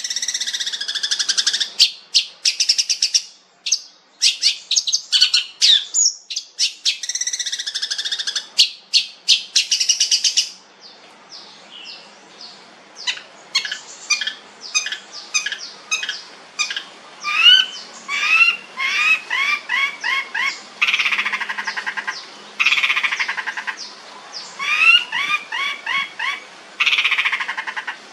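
Long-tailed shrike (cendet) singing a loud, varied song. It opens with dense, fast runs of harsh rattling notes, goes quieter about ten seconds in, then shifts into quick series of short upward-sliding chirps broken by bursts of harsh chatter.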